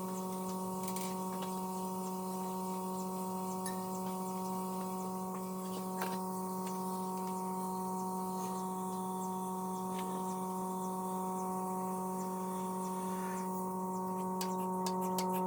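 Steady electric machine hum at one fixed pitch, of the kind a milking machine's vacuum pump gives while running. A rapid, even ticking joins it near the end.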